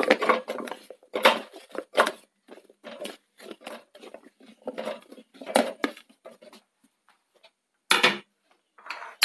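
Chunks of raw elephant foot yam dropped by hand into an aluminium pressure cooker: a run of irregular knocks and clatters as pieces hit the pot and each other, thinning out and ending with a couple of last knocks.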